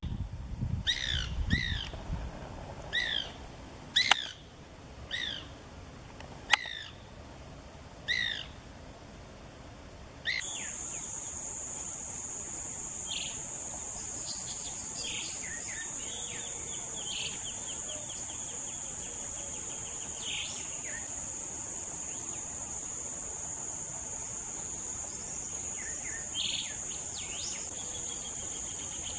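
A bird repeats a short, downward-sliding call about once a second, with two sharp clicks among the calls. About ten seconds in, the sound cuts to a steady, high insect drone with scattered bird chirps and calls over it.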